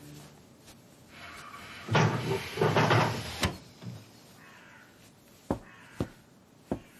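Crow cawing, two harsh calls about two seconds in, followed by a few short, sharp knocks.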